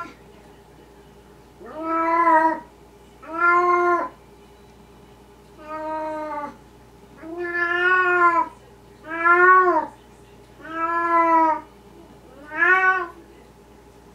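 Long-haired cat meowing over and over: seven drawn-out meows about a second and a half apart, each rising and then falling in pitch.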